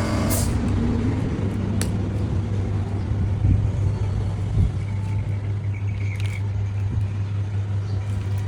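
A machine running with a steady low hum, with a couple of short clicks over it.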